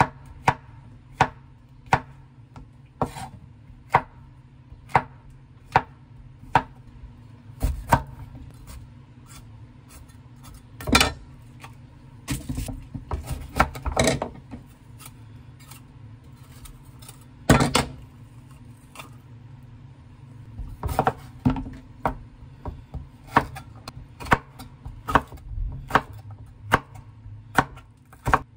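Chef's knife chopping on a wooden cutting board, slicing button mushrooms and then a crisp red bell pepper: sharp knocks of the blade on the board, about one a second at first and quicker near the end.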